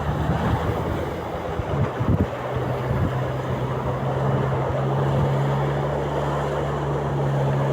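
Amphibious all-terrain vehicle's 109 hp Toyota engine running at a steady pitch while the vehicle swims, under a wash of water and wind noise. There is some low buffeting in the first two seconds.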